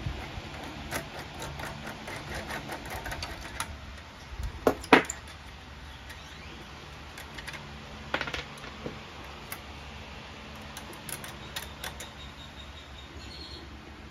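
Small metal hardware (nuts, washers and a fitting) clicking and tapping as it is handled by hand against the turbine motor, in irregular light ticks, with a couple of sharper clicks about five seconds in and again about eight seconds in.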